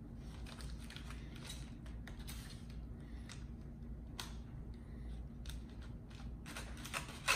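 Knife sawing slices off a smoked bologna chunk, in short irregular scraping strokes against the cutting board, with a sharper knock near the end.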